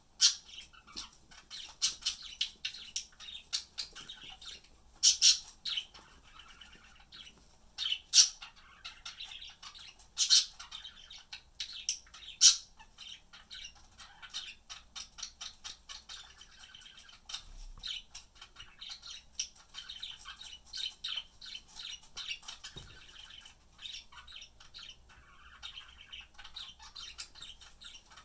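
Pet budgerigars chattering with rapid, continuous chirps, and a few louder, sharper calls in the first half.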